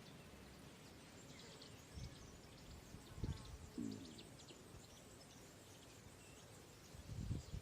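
Faint outdoor nature ambience with scattered small bird chirps and a few short low thuds.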